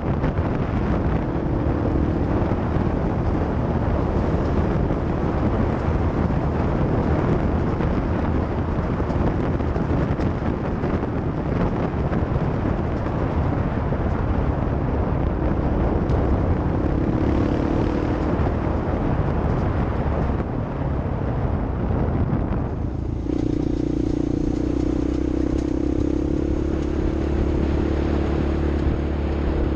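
A motor vehicle driving off-road, its engine running under a dense rumble of wind and ground noise. About 23 seconds in the noise drops and a steady engine hum comes to the fore.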